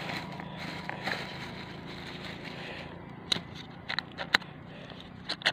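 Thin plastic bag crinkling as it is handled, with several sharp crackles in the second half, over a steady low hum.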